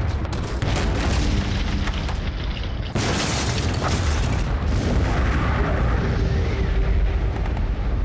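Battle-scene explosions: a continuous heavy low rumble, with a sharp blast about three seconds in.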